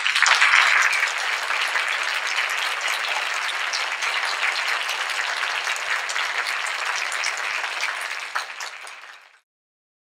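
Audience applauding: dense clapping that is loudest at the start, holds steady, then thins and cuts off near the end.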